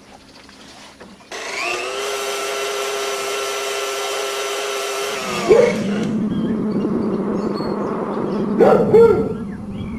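An electric motor starts with a steady whine, then drops in pitch about halfway through as it bogs into a harsh, grinding noise that grows louder, with a brief louder burst near the end.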